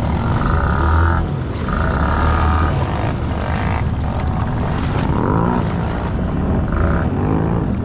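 ATV engine running hard and revving up and down, the pitch rising and falling several times, as it pushes through deep mud and water.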